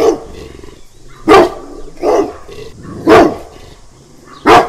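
A dog barking, a stock sound effect: four loud barks about a second apart.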